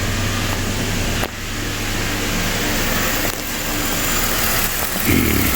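Chevrolet Silverado 5.3 L V8 idling steadily while an induction cleaning service runs through the intake, with a steady hiss over the engine hum.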